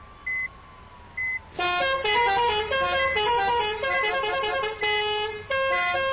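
Bus 'telolet' horn, a multi-tone horn, playing a quick changing melody of several notes at once, loud, starting about a second and a half in with short breaks near the end. Before it, short high beeps sound about once a second.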